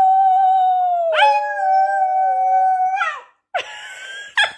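Small fluffy husky-type dog howling: one long steady howl, joined about a second in by a second, lower howling voice, both held until about three seconds in. Shorter, rougher sounds follow near the end.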